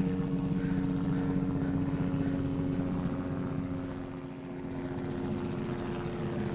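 Helicopter passing overhead at a distance: a steady drone of engine and rotor that eases off briefly about four seconds in, then returns.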